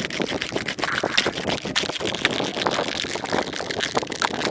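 Rapid, continuous tapping and clicking on a plastic kolukattai (modak) mold, many sharp taps a second.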